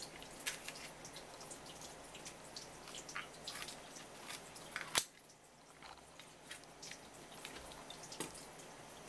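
Raw swimming crab being pulled apart by hand: scattered small wet clicks and crackles of shell, with one sharp crack about five seconds in.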